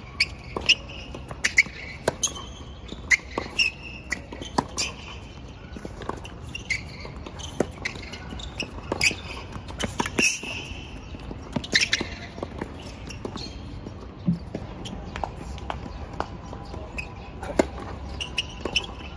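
Tennis ball being struck by rackets and bouncing on the court during a rally: a run of sharp pops at irregular intervals, about one or two a second.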